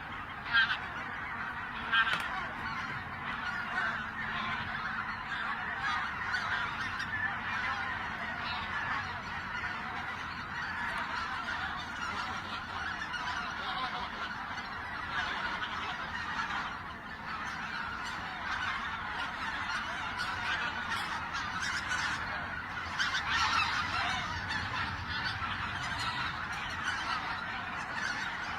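A flock of wild geese honking continuously, many calls overlapping, with a couple of louder single honks near the start.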